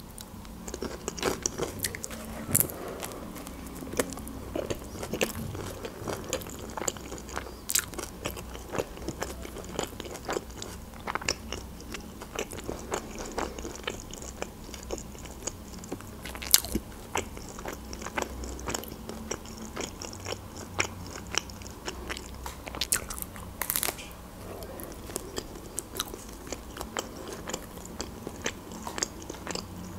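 Close-miked chewing and biting of a shawarma wrap: a steady run of small wet mouth clicks and smacks, with a few sharper, louder sounds along the way.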